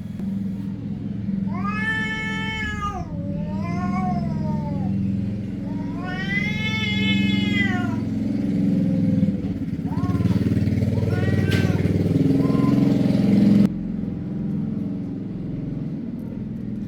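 Cat meowing in several long, drawn-out calls that rise and fall in pitch, over a steady low rumble that cuts off suddenly near the end.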